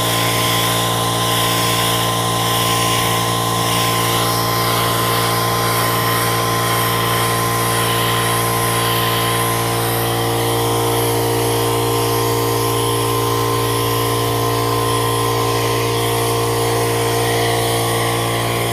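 Small air compressor running steadily with a low even hum, under the hiss of an air spray gun spraying latex paint.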